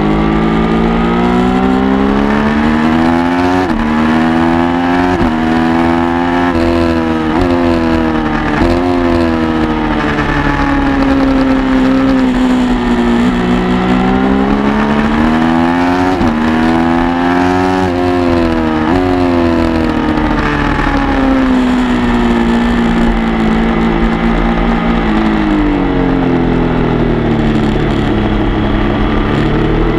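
Sport motorcycle engine at track speed, revving up through the gears with its pitch dropping sharply at each upshift, then winding down slowly under braking, twice over, and climbing again near the end. Wind rush on the microphone runs under it.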